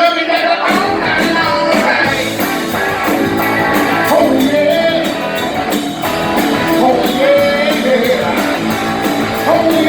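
A live electric blues-rock band playing loud, with electric guitar over a steady drumbeat and bending guitar or vocal lines.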